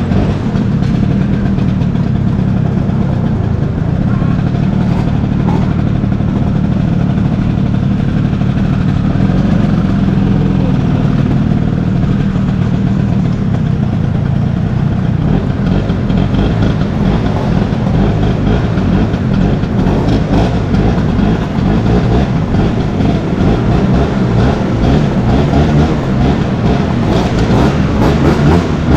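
An old Vespa scooter's two-stroke engine running steadily, with a loud, continuous motor drone.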